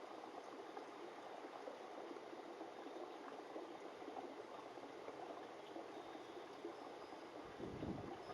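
Faint steady background hiss, with a low rumble of handling noise near the end.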